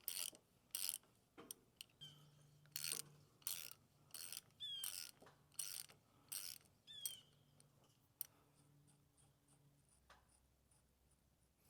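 Hand socket ratchet clicking in short rasping strokes, roughly one to two a second, as the bolts drawing the gland into a hydraulic excavator boom cylinder are run down; the strokes stop about two thirds of the way through.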